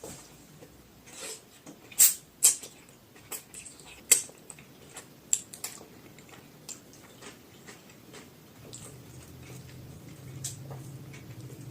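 Close-miked eating sounds: wet clicks and smacks from chewing and biting, irregular, with a few loud sharp ones about 2, 2.5 and 4 seconds in. A low steady hum joins from about nine seconds in.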